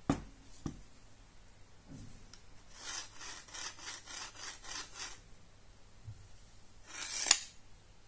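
Hands handling a homemade wooden slingbow stock with a cord wrapping: two light knocks, then a quick run of rubbing strokes on the wood and cord, about five a second for two seconds, and a sharp scrape near the end.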